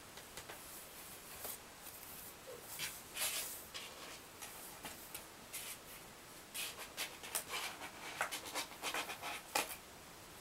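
Kittens' claws scratching and scrabbling on cardboard and a blanket: short rasping scrapes, in a burst about three seconds in and a longer run through the second half.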